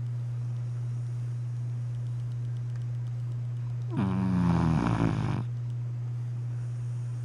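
Five-month-old Vizsla puppy snoring in her sleep: one long snore about four seconds in, falling in pitch, over a steady low hum.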